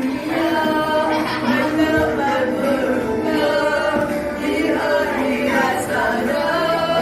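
A group of voices singing a nasyid a cappella, holding long sung notes, during a rehearsal.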